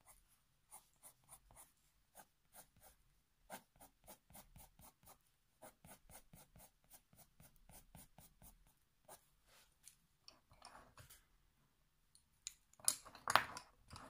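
Faber-Castell Polychromos coloured pencil hatching on paper: faint, quick scratchy strokes, several a second. Near the end, a louder rattle as the pencils beside the book are handled.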